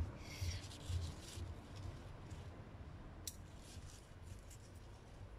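Chili pepper plant leaves rustling as its shoot tips are cut off, with a few dull thumps in the first second or so and one sharp snip a little over three seconds in.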